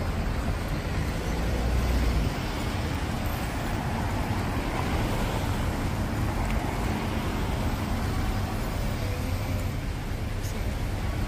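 Steady city street traffic noise from passing cars, with a constant low rumble.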